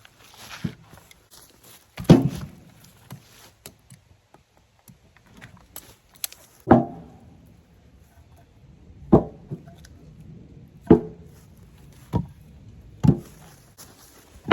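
Chunks of cut firewood knocking down onto a load, a series of about seven sharp wooden thunks at uneven intervals, each with a short ring.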